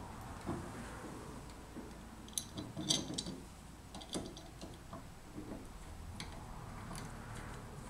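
Light clicks and ticks of a screwdriver working the screws of a Triumph Spitfire Mk3's door striker plate, with a short cluster of ringing metal clinks about three seconds in.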